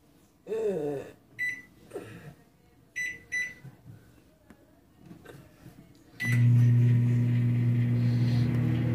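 Microwave oven keypad beeping three times as the cooking time is entered, then about six seconds in the oven starts with a click and runs with a steady low hum.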